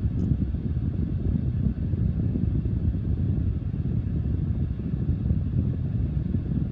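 Small draft-inducer blower running steadily, a low rumbling rush of air.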